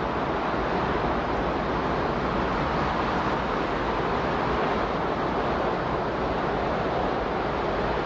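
Steady, even rushing noise that neither swells nor fades: the masking sound of a subliminal audio track.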